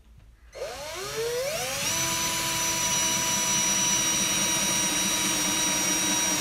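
Battery-powered drill with a drill bit starting about half a second in, its motor whine rising in pitch for about a second and a half and then running steadily as the bit bores a diagonal pilot hole up through a wood 2x4 stud into the top plate.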